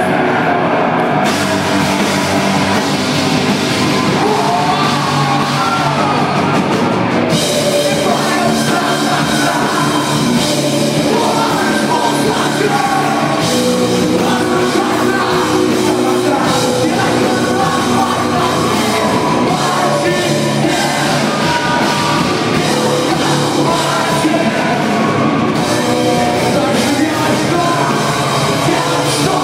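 A live heavy rock band playing loud and dense, with a singer, guitars and drums.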